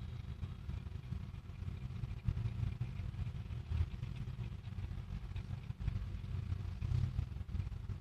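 Low, uneven background rumble with no distinct events.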